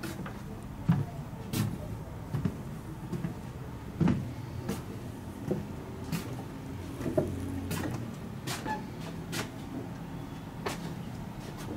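Footsteps on a wooden plank walkway: a string of irregular knocks at walking pace over a low steady hum.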